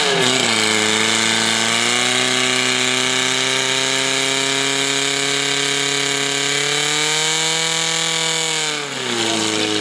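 Portable fire pump's engine running hard under load, pumping water out through two hose lines. Its revs rise about two seconds in, hold high and steady, then fall sharply near the end as the throttle comes off.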